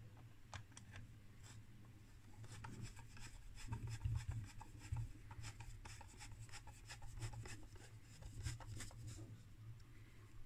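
A screw being turned by hand into a 3D-printed plastic bottom lid: faint scraping and a scattered run of small clicks.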